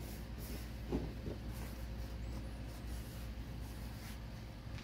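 Paper towel rubbing over a painted axe head in soft wiping strokes, with a couple of faint knocks about a second in, over a low steady hum.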